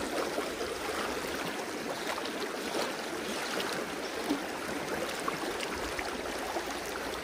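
Creek water rushing steadily over rocks, an even hiss of flowing water.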